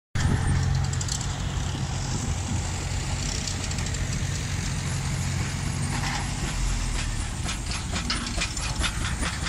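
Steam traction engine running as it drives slowly closer: a steady low rumble, with a run of quick rattling knocks from its running gear in the last few seconds.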